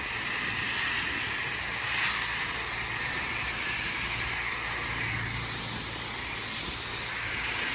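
Pressure washer running: a steady hiss of water spraying against a house wall over the low, even hum of the machine's engine.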